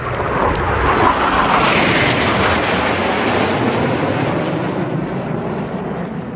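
Red Arrows BAE Hawk jets, Adour turbofans, making a low formation pass: a loud jet roar that swells to its peak about a second in, then slowly fades as the aircraft fly away.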